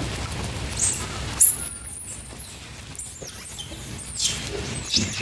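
Monkeys giving short, high-pitched squeaks, about five of them, the loudest about a second and a half in, over a low rumble of wind or handling noise.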